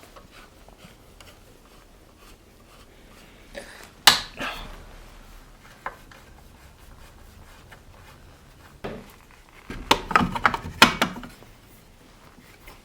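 Tools and metal chainsaw parts knocking and clattering as the saw is taken apart by hand. There is one sharp knock about four seconds in, a few lighter clicks, and a run of clattering near the end.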